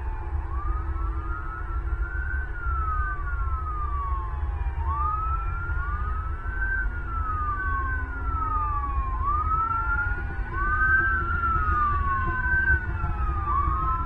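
Two emergency-vehicle sirens wailing slightly out of step, each rising quickly and sliding slowly back down about once every four seconds, over a steady low rumble.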